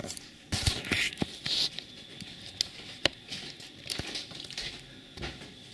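Handling noise from a handheld video camera being swung around and carried: scattered sharp clicks and knocks with rustling, and probably footsteps on the floor.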